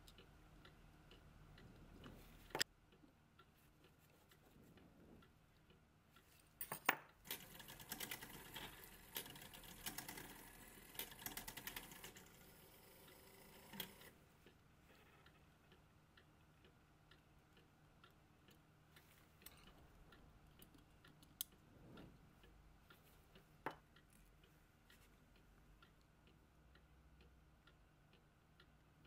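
Faint small metal clicks and taps of tweezers handling the brass parts and a screw of a clock movement's ratchet click, with a busier stretch of clicking and scraping from about seven to fourteen seconds in and a few single sharper clicks.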